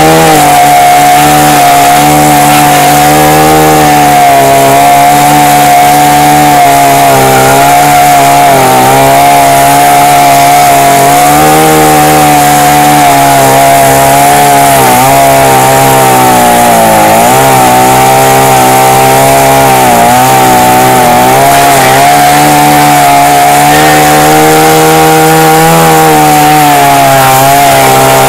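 Petrol chainsaw running at full throttle and cutting through logs on a steel saw bench. The engine note holds steady, dipping briefly several times near the middle as the chain bites into the wood under load.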